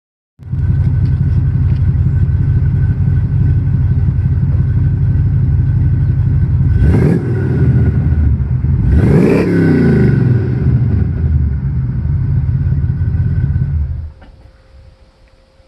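Plymouth 'Cuda's 383 big-block V8 running at idle, blipped twice about halfway through, rising and falling in pitch each time, then shut off near the end.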